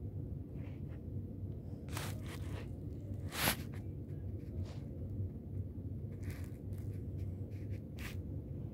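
Scattered soft rustles and brief scrapes of movement, the sharpest about three and a half seconds in, over a low steady hum.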